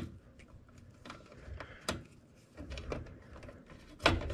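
Small clicks and rubbing of hands handling wires as a plastic wire cap is twisted onto a spare blower-motor speed lead and the leads are tucked into the control box. A sharp click comes right at the start and a louder knock about four seconds in.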